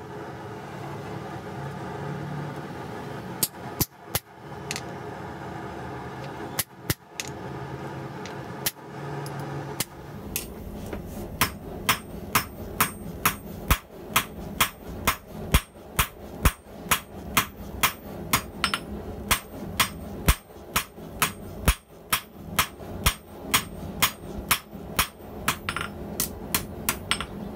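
Hand hammer striking a red-hot steel bar on an anvil. Over the first ten seconds a few scattered blows sound against a steady hum; from about ten seconds in, the hammering becomes a steady rhythm of about two blows a second.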